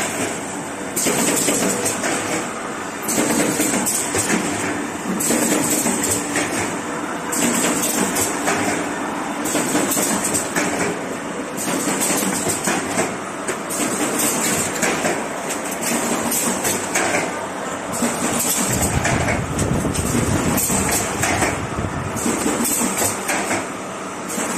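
Automatic carton partition assembler machine running: continuous mechanical clatter with a bright hiss that comes back about every two seconds as it cycles. A deeper rumble joins near the end.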